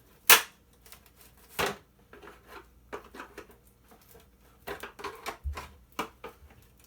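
Hand disassembly with a screwdriver: two sharp clacks in the first two seconds, then a run of lighter clicks and taps as the tool and loose parts are handled.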